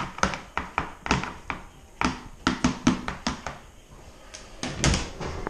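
Chopped cucumber being tipped and shaken off a plastic cutting board into a plastic bowl. It makes a run of quick, irregular taps and knocks as the pieces drop in, with a louder cluster near the end.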